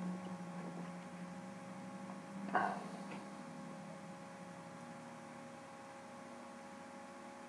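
Faint, steady electrical hum made of several fixed tones, with one brief louder sound about two and a half seconds in.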